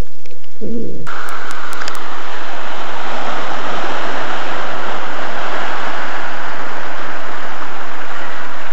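Surf washing over a rocky shore ledge: a loud, steady rush of breaking water that cuts in suddenly about a second in, after a moment of muffled underwater sound.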